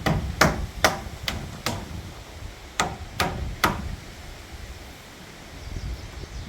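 Hammer blows in demolition work: five quick strikes, a short pause, then three more, about two or three a second, each with a brief ring.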